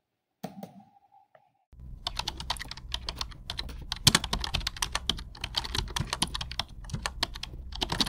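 Rapid typing on an HP laptop's keyboard: a dense, uneven run of key clicks starting about two seconds in, after a brief faint sound near the start.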